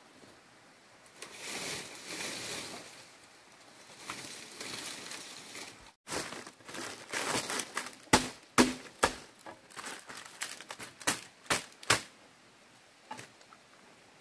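Dry leaves and bamboo rustling and crackling as they are handled, then a run of sharp chops from a machete into the dry material, several in quick succession.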